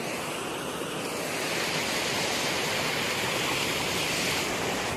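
Waterfall and stream water rushing steadily, growing a little louder and brighter through the middle.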